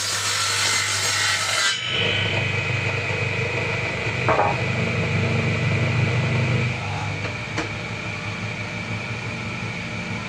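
Wood being worked with a tool, a harsh rasping, scraping sound. It cuts off abruptly just under two seconds in, leaving a steadier, lower sound with a thin high whine and a couple of brief clicks.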